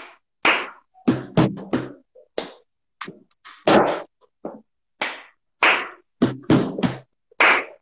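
Hand claps, knocks on a tabletop and a cup banged down, played as a cup-game rhythm without singing: two claps, three quick knocks on the table, a clap, then the cup's thump. The pattern starts over about five seconds in.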